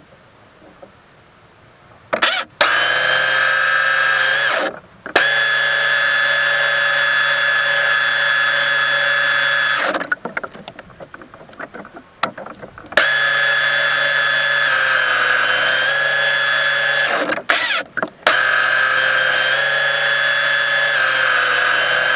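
Electric motor of a radio-controlled mini boat whining at a steady pitch, heard close up from on board, in long full-throttle runs that cut off abruptly four times, with a slight dip in pitch near the middle and near the end. In the pauses there is quieter splashing water.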